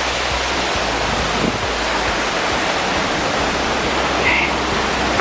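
Waterfall rushing steadily, an even loud noise of falling water.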